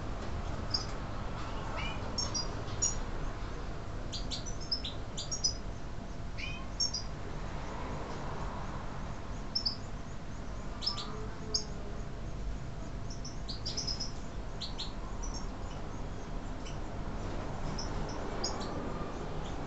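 European goldfinches of the large 'major' race giving short, high chirps and call notes, scattered irregularly and sometimes in quick pairs, over a steady low background rumble.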